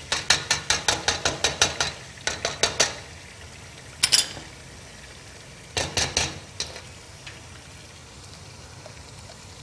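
Quick clinks and knocks of kitchenware as chopped wheat is shaken out of a food-chopper bowl into a steel cooking pot: a fast run of taps for about two seconds, a few more, then a single loud knock and a short cluster later. Under it is a faint steady sizzle of meat and masala frying in the pot.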